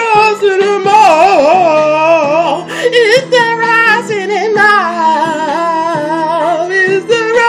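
A young man singing a long, wavering melismatic run that slides up and down in pitch, over sustained low notes from a backing track.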